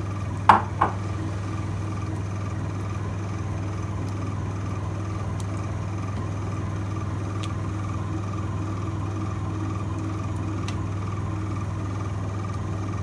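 A steady low electrical hum from a mains-powered appliance or motor. A short knock sounds about half a second in, as the spatula hits the frying pan, with a few faint ticks later.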